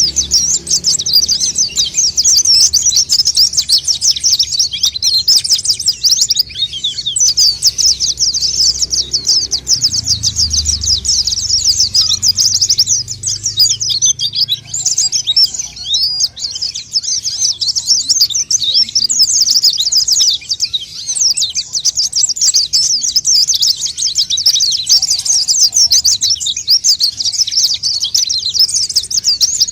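White-eye (pleci) singing continuously: a dense, rapid, high-pitched twittering of chirps with hardly a pause.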